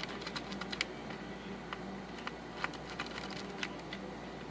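Irregular small clicks and ticks of a screwdriver turning in the screws that fasten an alarm system keypad to its wall mount.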